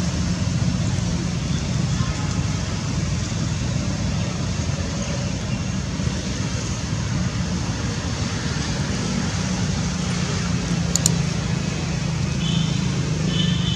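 Steady low background rumble, with a brief click late on and a few short high-pitched squeaks near the end.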